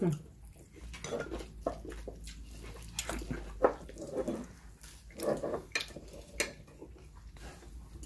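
Tableware clinking during a meal: a handful of sharp, separate clicks and knocks of bowls, dishes and utensils, spread over several seconds.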